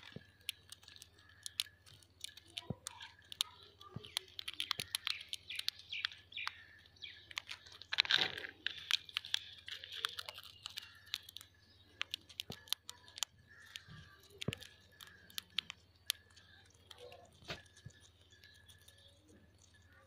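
Indian ringneck parakeet cracking and crunching roasted chickpeas with its beak: sharp irregular clicks and crunches, densest in the first half, with soft bird chirps mixed in.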